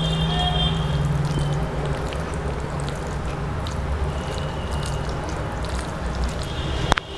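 A hand squeezing and mixing water-soaked rice (panta bhat) on a plate, making wet, watery mixing sounds. There is a sharp click near the end.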